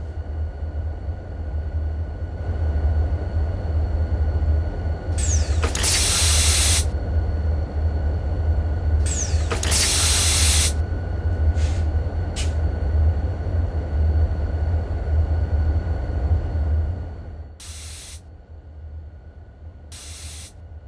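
Rocket launch-pad sound effects: a steady low rumble with two loud hisses of venting gas about six and ten seconds in, and several shorter hisses later. The rumble drops away in the last few seconds.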